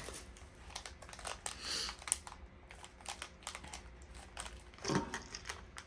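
Small plastic package being handled and opened by hand: faint, irregular clicks and taps with a short crinkle of plastic about one and a half seconds in.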